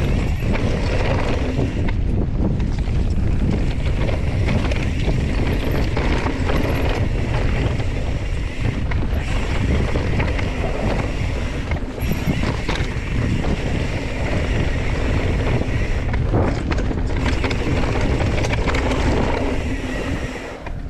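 Wind buffeting the camera microphone over the rumble and rattle of a Specialized Stumpjumper Evo mountain bike descending dry dirt singletrack, tyres crunching over the trail with frequent small knocks from the bike. The rush eases just before the end.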